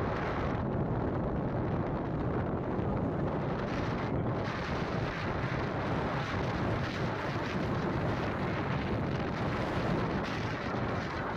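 Steady wind rushing over the microphone, mixed with the road noise of a vehicle travelling at speed along a highway.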